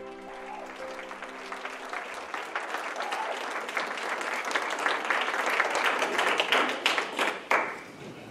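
Congregation applauding, the clapping building up and then stopping abruptly near the end.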